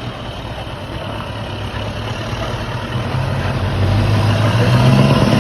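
Scania V8 truck engine running at low revs with a steady, deep note, growing louder over the last couple of seconds.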